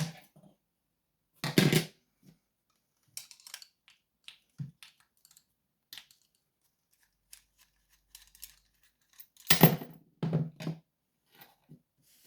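Small metal clicks and knocks from a Sesamee pin-tumbler padlock being handled as it is taken apart, with two louder clattering bursts, about a second and a half in and again near the end.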